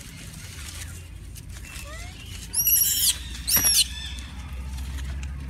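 Macaque giving two shrill, high-pitched screams a little past the middle, about half a second apart, each rising then falling in pitch, after a few faint rising squeaks.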